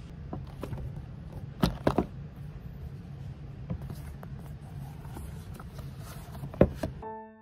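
A tablet in a folding cover being handled on a tabletop: the case knocks sharply against the table twice about two seconds in and once more near the end, with small taps and rustles between, over a steady low background rumble.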